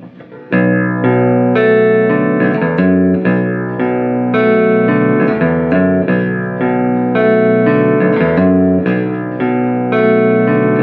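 Squier Paranormal Baritone Cabronita Telecaster played through an amp with the neck and bridge single-coil pickups both selected. Picked chords and single notes ring out, starting again about half a second in after a short gap. The player finds the pickups carry too much hum.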